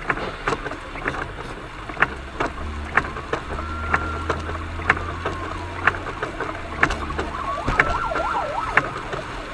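Road and tyre noise heard inside a car driving on a rain-soaked highway, with irregular sharp taps and a faint whine that rises and falls twice.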